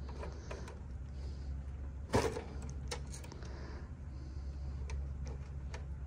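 Small clicks and taps of wire spade connectors and tools being handled at an HVAC unit's run capacitor, with one sharper snap about two seconds in, over a steady low hum of running equipment.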